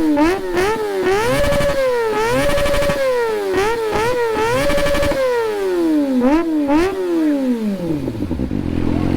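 Kawasaki ZX-25R's 249 cc inline-four revved hard again and again through a Villain X1 slip-on muffler, the pitch climbing high and three times held briefly at the top, with light popping and backfire as the revs drop. Near the end it falls back to a low idle.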